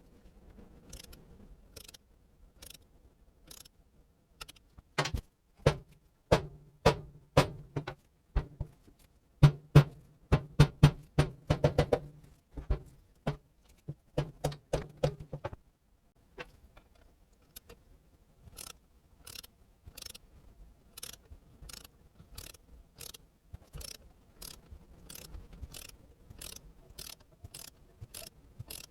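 Hand tools working on a small two-stroke motorcycle engine's crankcase: a series of sharp metallic clicks and knocks. They come louder and denser in the middle, then settle into evenly spaced clicks toward the end.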